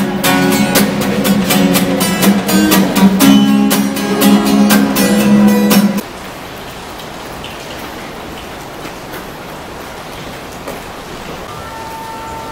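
Acoustic guitar strummed in a quick, even rhythm, cutting off suddenly about six seconds in. After that, a steady hiss of rain falling, with a faint steady tone coming in near the end.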